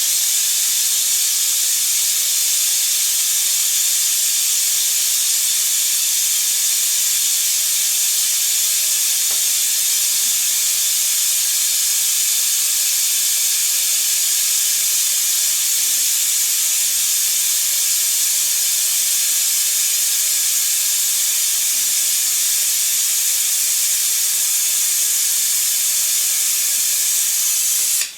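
Pneumatic vacuum brake bleeder run on compressed air, hissing steadily as it draws fluid and air out through the front brake bleeder valve. The hiss cuts off sharply at the very end.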